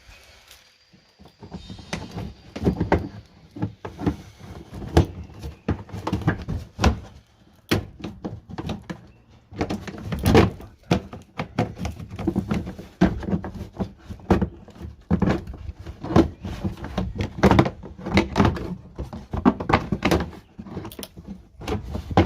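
Irregular knocks and clunks of hand tools and parts being handled while dismantling a car's rear suspension, one or two a second.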